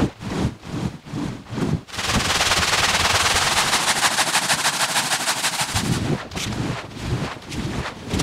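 Stiff push brush scrubbing a shampoo-foamed rug. It starts with strokes about three a second. About two seconds in it becomes a dense, fast scratching rattle of bristles through the foam for about four seconds, and slower strokes return near the end.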